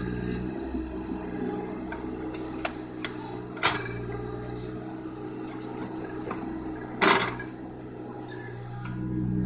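John Deere 17D compact excavator's small diesel engine running steadily while the boom and bucket work, with a few sharp knocks and one loud clunk about seven seconds in as the bucket works the mud and logs.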